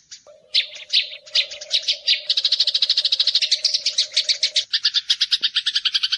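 Eurasian tree sparrow chattering: sharp, rapid chirps, a few spaced ones at first, then from about two seconds in a fast unbroken run of roughly ten a second.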